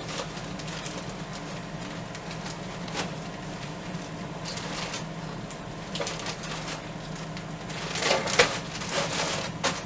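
Plastic zip-top bag crinkling and rustling as graham crackers in it are handled and the bag is sealed, with a few scattered clicks and a denser crackling about eight seconds in, over a steady low hum.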